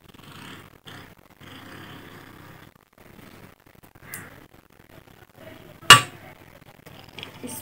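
Steel scissors snipping through a rubber balloon, with a short sharp snip about four seconds in, then one loud sharp snap about six seconds in.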